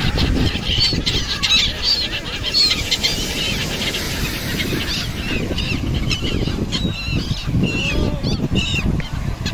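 A flock of gulls calling, many short high squawks overlapping throughout, over a steady low rumble.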